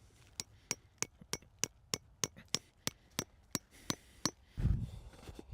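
A quick, even run of light metallic clinks, about three a second, each with a brief high ring. A dull low thump follows near the end.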